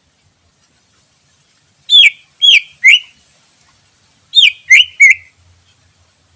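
Greater green leafbird (cucak ijo) calling: two bursts of three sharp whistled notes, each sliding steeply down in pitch. The first burst comes about two seconds in and the second about two seconds later.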